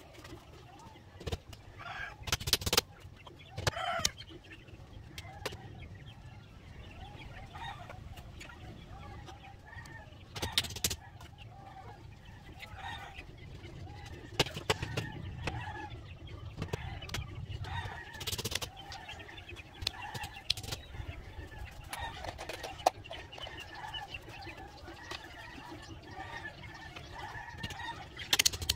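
Chickens clucking on and off in the background, with a dozen or so sharp knocks of handwork on the bamboo cage standing out above them.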